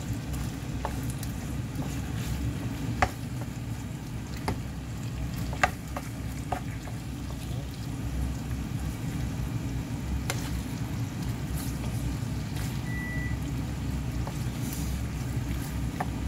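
Spicy stir-fry of gopchang and vegetables sizzling in a nonstick frying pan on medium heat, over a steady low rumble. A wooden spoon knocks and scrapes against the pan now and then.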